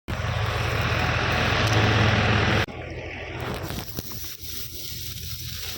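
Tractor-driven wheat thresher running: a steady engine hum under a loud rushing noise. About two and a half seconds in, the sound drops suddenly to a quieter level, with the engine hum still running.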